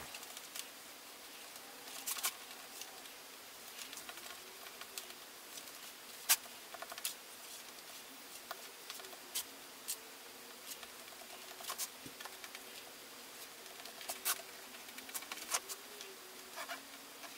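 Marker pen drawing on a fiberglassed surfboard deck: faint scratching with scattered, irregular light taps and clicks, the sharpest about six seconds in.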